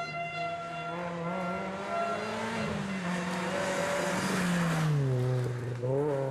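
Renault Clio rally car driving past at speed: the engine revs up and down through gear changes, with a rush of tyre and road noise as it passes closest. The engine note then drops and climbs again near the end as it pulls away.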